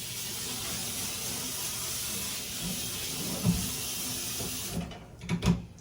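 Pieces of dough frying in hot shortening: a steady hiss of sizzling oil that cuts off suddenly near the end, with a few light knocks about halfway and again near the end.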